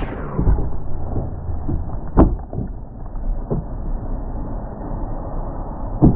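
Snowboard scraping and rumbling over snow and park features, with a sharp knock about two seconds in and another near the end, typical of a board striking a rail or box.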